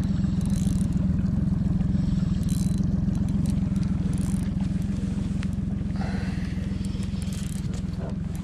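Boat engine running steadily, a constant low hum.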